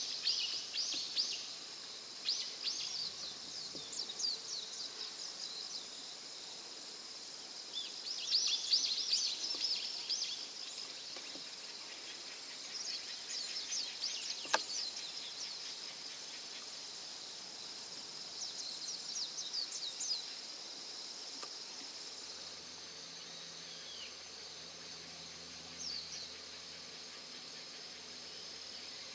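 Field ambience by a pond: a steady high-pitched insect trill, with bursts of high chirping every few seconds and a single sharp click about halfway through.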